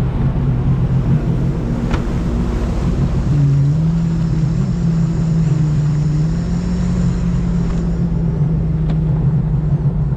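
Stage 1 Sea-Doo RXT-X personal watercraft engine running steadily at cruise, its pitch rising slightly about three and a half seconds in. It runs loud through its aftermarket exhaust.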